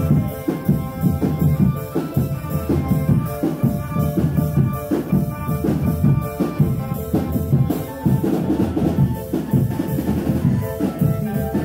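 A drum band playing live: bass drums and snares beating a fast, steady rhythm, with a pitched melody over the drums.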